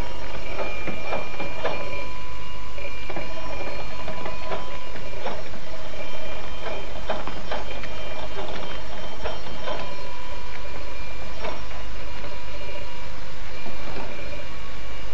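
A train running on rails: a steady sound with irregular clacks and a few thin, steady high tones held over it.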